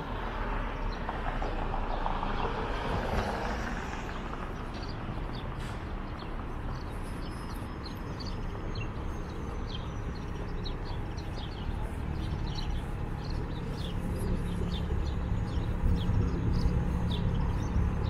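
City street traffic going by, with a louder pass in the first few seconds. A low wind rumble on the microphone builds in the second half.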